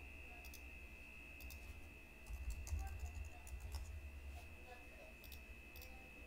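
Faint, scattered clicks of a computer mouse, singly and in quick pairs, over a steady high-pitched whine and a low hum.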